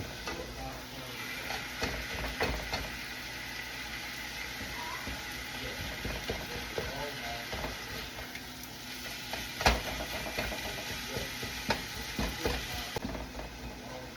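Seasoned ground beef sizzling in a pan while being stirred, the utensil scraping and knocking against the pan, with one sharper knock about ten seconds in.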